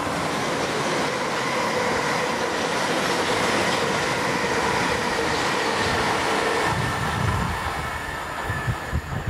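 Class 450 Desiro electric multiple unit passing close at speed: a steady rush of wheel and rail noise with a faint steady whine. About seven seconds in the sound drops to a quieter rumble with low thumps.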